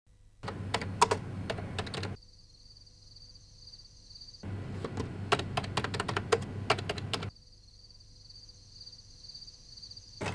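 Fingers typing fast on a beige PC keyboard: two bursts of rapid key clicks, the first about a second and a half long, the second nearly three seconds.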